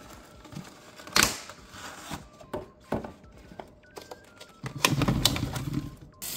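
Plastic clamshell strawberry container clicking and crackling as it is opened and handled. Near the end it is tipped and the strawberries tumble out in a short jumbled rush.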